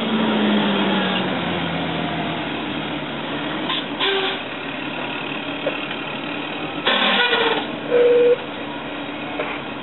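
Fire engine at the scene: a siren winds down over the first couple of seconds, then the truck's engine runs steadily. Two short bursts of hiss come about four and seven seconds in, and a brief loud tone sounds near eight seconds.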